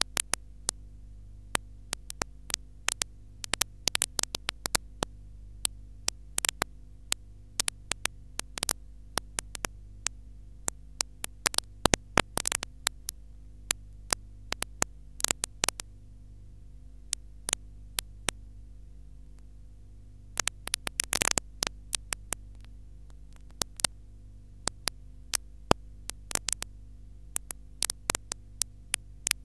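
Steady low hum with irregular sharp clicks and crackles scattered through it, denser around the middle; the noise left on the soundtrack after the programme has ended.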